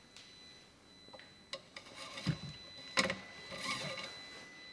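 Engine oil dipstick being handled during an oil-level check after an oil change: it is wiped with a rag and slid in and out of its tube. A few light clicks and scrapes, a dull knock about two seconds in, and a short rustle of cloth.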